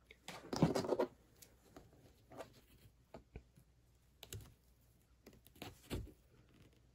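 Small handling noises of hands pressing hot-glued ribbon onto a cardboard sign with a silicone tool: a louder rustle about a second in, then scattered light clicks and taps.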